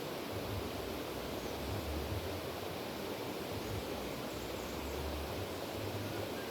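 River water flowing, a steady rushing noise, with a low rumble that comes and goes.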